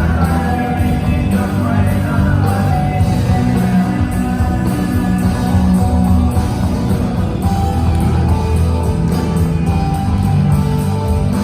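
Rock song with a singing voice, guitars and a steady bass.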